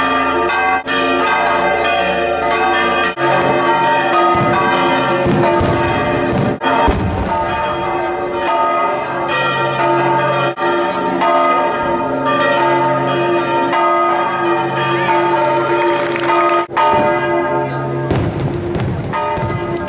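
Church bells ringing continuously, many overlapping bell tones sounding together, with several brief breaks.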